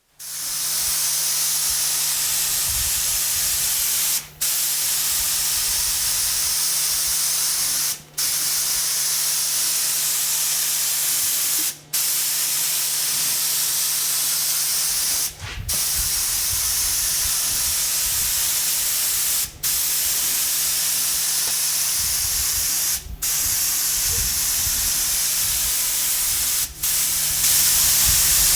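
Steady, loud hiss over a low steady hum, broken by brief dropouts about every four seconds.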